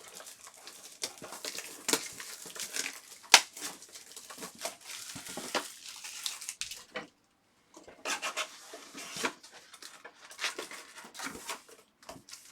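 Trading-card pack wrappers being torn open and crinkled, with sharp crackles and rustling as the packs are ripped and the cards are handled. There is a short pause about seven seconds in.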